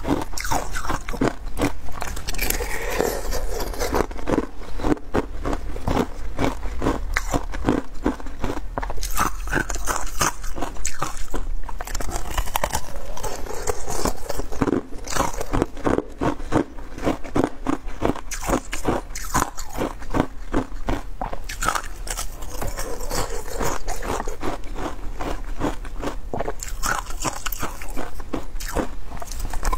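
Thin ice set with pomegranate seeds being bitten and chewed: a continuous run of sharp crunches and cracks, several a second.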